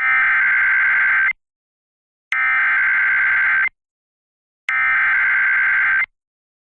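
Emergency Alert System SAME header: three identical bursts of high-pitched digital data tones, each a little over a second long, with about a second of silence between them. They are the coded start of a National Weather Service severe thunderstorm warning.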